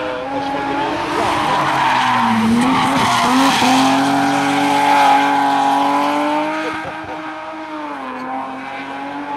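Rally car engine held at high revs as the car passes through a bend, its pitch dipping briefly about two and a half seconds in, then fading as it goes away.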